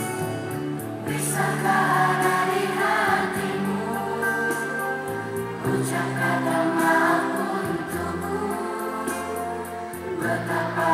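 A group of children singing together in unison to an instrumental backing of held notes; the voices swell about a second in.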